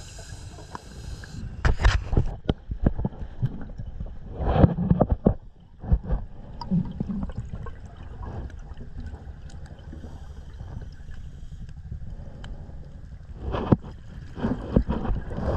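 Scuba diver breathing through a regulator underwater: a hiss of inhaled air about the first second, then bursts of exhaled bubbles gurgling, loudest about two seconds in, around four to five seconds in, and near the end.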